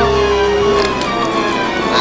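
Cartoon background music; a held note stops a little under a second in.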